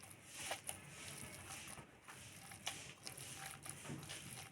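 Hands mixing a mashed futkal-leaf chutney with mustard oil in a bowl: faint soft squishes and scattered light clicks.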